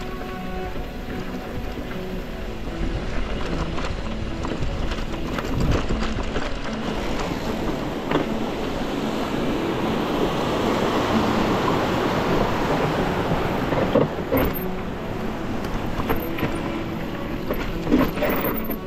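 Wind rushing over the microphone and rolling noise from a ride on an e-mountain bike, swelling toward the middle, with a few sharp knocks from bumps in the trail.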